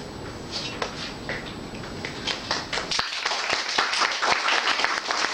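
Audience clapping: a few scattered claps at first, then full applause from about three seconds in.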